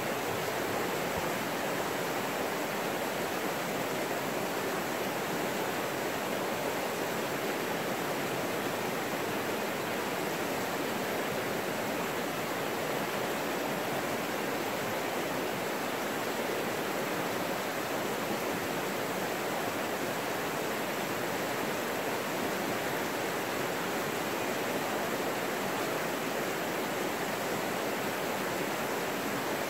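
McKenzie River rapids rushing steadily over rocks in a shallow forest channel.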